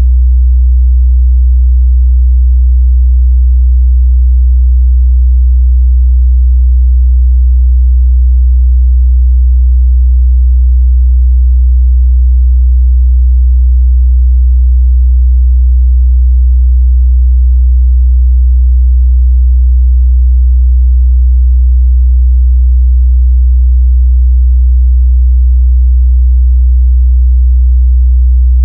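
Continuous steady 62 Hz sine-wave test tone, a single low bass pitch.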